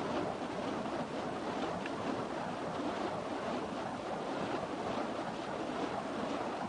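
Burning fire poi heads whooshing through the air as they are spun, a steady rushing noise.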